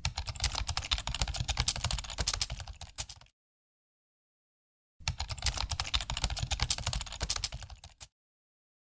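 Computer keyboard typing sound effect: two runs of rapid keystrokes, each about three seconds long, separated by dead silence.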